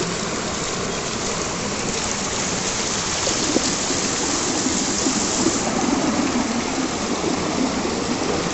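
River water pouring over the crest of a low stone check dam that has filled to overflowing, a steady rushing sound.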